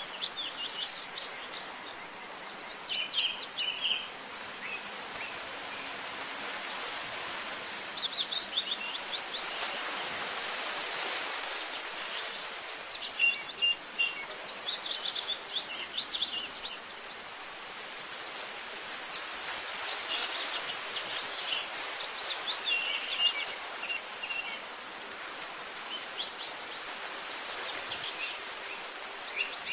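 Small birds chirping and singing in short, scattered phrases over a steady outdoor hiss that swells louder twice.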